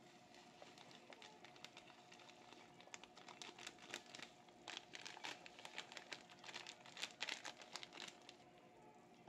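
Faint, rapid, dry crackling of a pepper mill grinding black pepper over the pot. It thickens from about three seconds in and thins out near the end.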